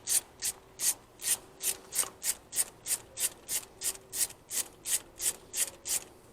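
Ratchet wrench clicking in quick, even back-and-forth strokes, about three a second, undoing the 5 mm Allen bolts on the inlet manifold of an AGU 1.8T engine.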